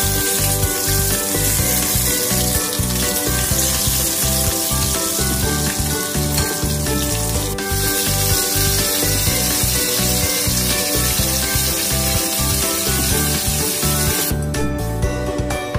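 Mackerel fillets sizzling as they fry in oil in a nonstick pan, over background music with a steady beat. The sizzle cuts off near the end, leaving only the music.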